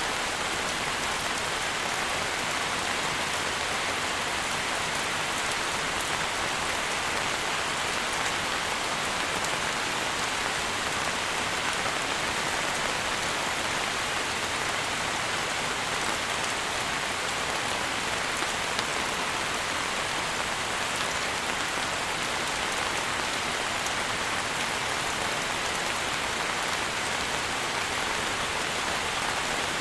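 Steady rain falling: an even, unbroken hiss with faint scattered ticks of individual drops.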